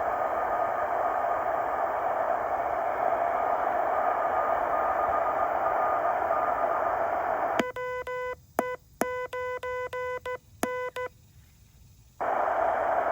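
Heathkit HW-8 QRP transceiver's receiver hiss with a faint steady whistle of a weak signal. About seven seconds in, the receiver goes quiet and a buzzy Morse code sidetone keys on and off in dots and dashes for about three seconds, the receiver muted while transmitting; the hiss returns about a second after the keying stops.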